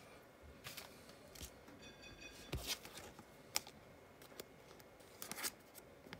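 Trading cards being handled: faint rustles and scattered light clicks, a little louder about two and a half seconds in and again near the end.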